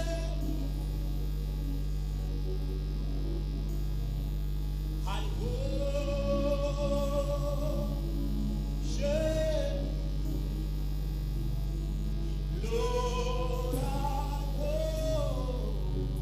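Slow gospel worship singing through microphones: long held notes in three phrases, starting about five, nine and thirteen seconds in, over a steady electrical hum.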